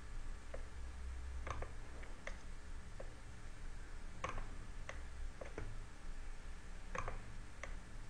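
Computer mouse buttons and keyboard keys clicking: about a dozen faint, irregular clicks over a steady low hum.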